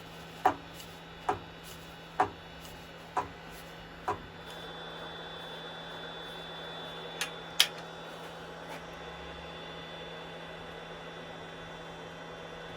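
Metal lathe scroll chuck being opened to release a turned bowl: five short clicks about a second apart as the chuck key is worked, then two sharper clicks a few seconds later, over a steady low hum.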